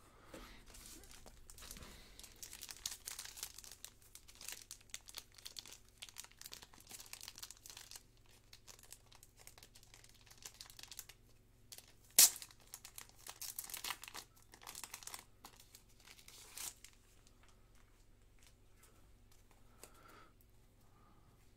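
Clear plastic bag crinkling and rustling as a stack of baseball cards is handled and pulled out of it, with one sharp click about twelve seconds in; the rustling stops about seventeen seconds in.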